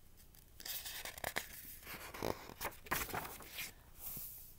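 Pages of a picture book being turned and handled: faint paper rustling and scraping in irregular short bursts, starting about half a second in and dying away near the end.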